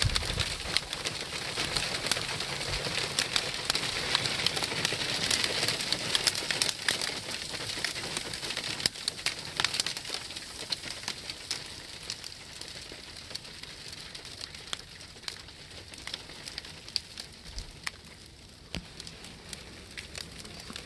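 Wintry precipitation of snow and graupel pattering: a dense stream of fine ticks over a steady hiss, easing off and getting quieter through the second half.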